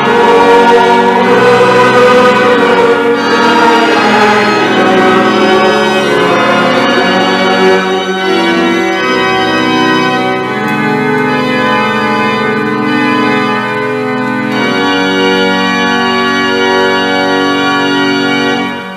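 Church pipe organ playing the closing chords of a psalm tune: slow chord changes, then one long final chord that stops shortly before the end. The congregation's singing of the last line fades out in the first few seconds.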